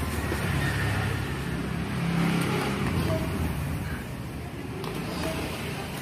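Toy remote-control racing car running, a low engine-like rumble that swells about two seconds in and eases off toward the end.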